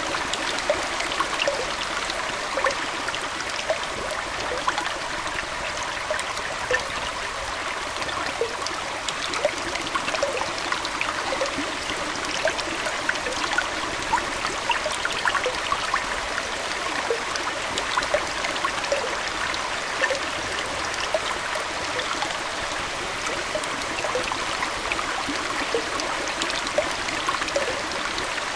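Aquarium water flowing and trickling steadily, with many small plops and bubbles.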